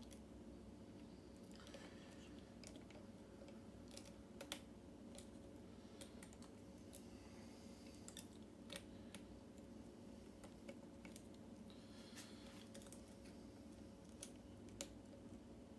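Lock pick and tension wrench working the pins of an old Yale mortise cylinder: faint, irregular small clicks with a few short scratchy scrapes between them.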